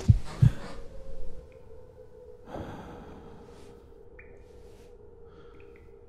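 Film sound design: two deep thumps at the start that fade away, then a sharp gasp about two and a half seconds in, over a steady low drone with a few faint, short high pings.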